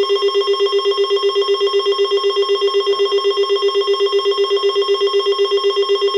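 A weather radio receiver's alert alarm going off: a loud, steady, rapidly pulsing electronic beep, about eight pulses a second. It signals that a new severe thunderstorm warning is being issued.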